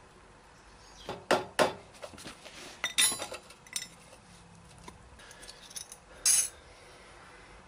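Metal tools and parts knocking and clinking together in a few sharp, separate clinks, with a last one near the end.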